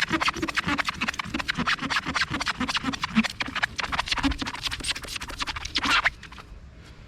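Scuff eraser pad scrubbed rapidly back and forth against rubbery foam-filled decals on a boat hull, with about three strokes a second; the scrubbing stops suddenly about six seconds in.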